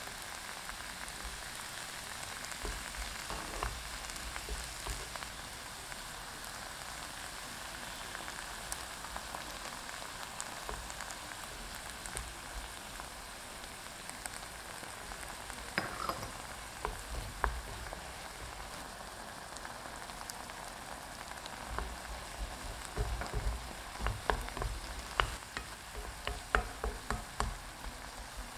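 Diced apples with sugar sizzling steadily in a nonstick wok. A wooden spoon stirs them, knocking and scraping against the pan now and then, with the knocks coming thickest in the last few seconds.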